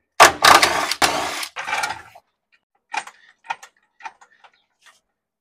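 A loud metallic clatter and rattle of shop equipment being handled for about two seconds, then a few light separate clicks.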